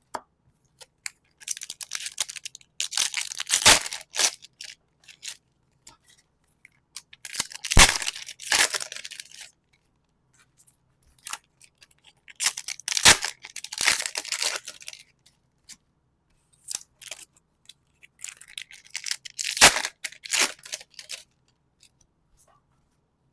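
Foil Pokémon card booster packs being torn open and crinkled, in four separate rounds, each with a sharp snap of tearing foil.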